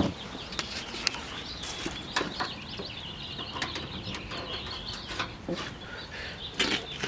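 Small birds chirping on and off in the background, with a few sharp clicks and knocks scattered through.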